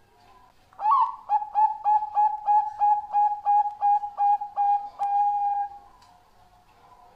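Bangkok-strain zebra dove (perkutut) singing its song. It opens with a rising note, then gives about a dozen short clipped coos at roughly three a second, and ends on a longer held note.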